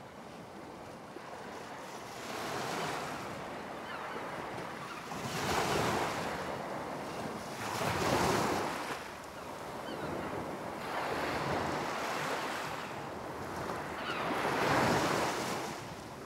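Waves washing onto a shore, each wash swelling up and falling away about every two to three seconds.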